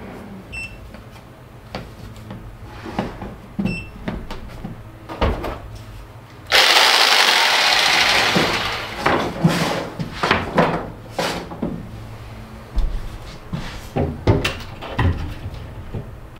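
Scattered knocks and clatter of handling, with a sudden loud burst of rushing noise about six and a half seconds in that fades over a second or two, followed by more knocks.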